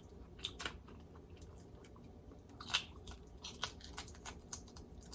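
Close-up chewing of crisp fried red snapper, with scattered crunches and wet mouth clicks; one crunch about two and a half seconds in is louder than the rest.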